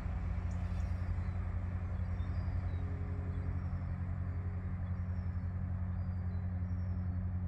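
Northern Class 195 diesel multiple unit's engines running with a steady low drone.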